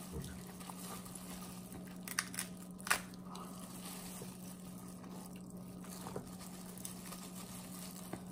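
King crab legs being cracked and pulled apart by hand and chewed, with a few sharp shell cracks about two to three seconds in, the loudest near three seconds, and smaller ticks later. A steady low hum runs underneath.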